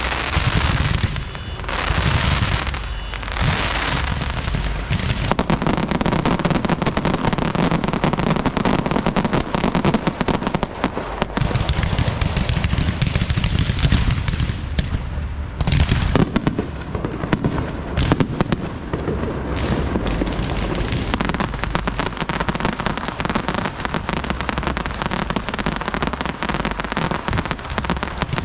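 Aerial fireworks show: a dense, continuous barrage of shells bursting, deep booms mixed with rapid crackling, with no pause.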